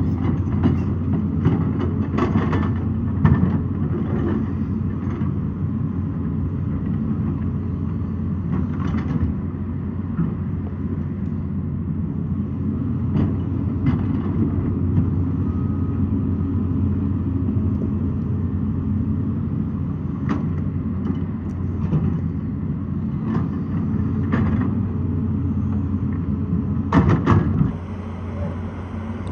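Excavator's diesel engine running steadily under load, with scattered sharp knocks and clanks from the working machine. Near the end comes a louder cluster of knocks, after which the engine note drops.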